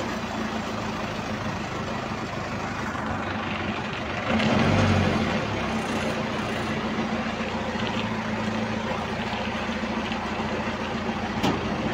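Forklift engine running steadily, speeding up briefly about four seconds in, with one short knock near the end.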